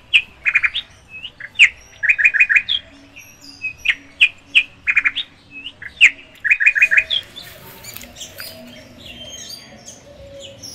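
Bird chirping: short, high-pitched calls, many in quick runs of three or four notes, repeated for about seven seconds, then only fainter chirps.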